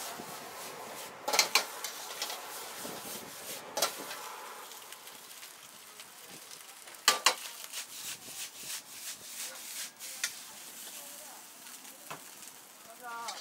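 Egg fried rice stir-frying in a wok: a steel ladle scraping and tossing the rice over a gas burner against a steady sizzle. Several sharp clangs of the ladle striking the wok, the loudest about a second and a half and seven seconds in.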